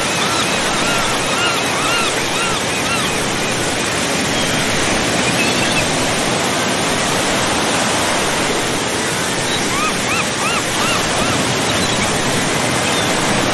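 A steady rush of water, like surf at a shore, with a bird's short chirping calls in quick series near the start and again near the end.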